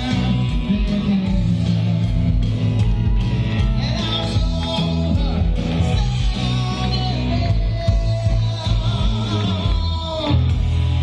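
Loud music with a singer, guitar and a heavy steady bass.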